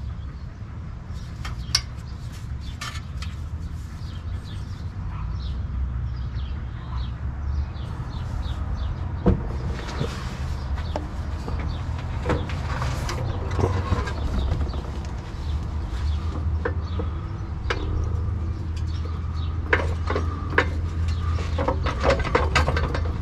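Irregular metallic clicks, knocks and clanks from hand work on a car's engine and a floor jack underneath it, over a steady low rumble.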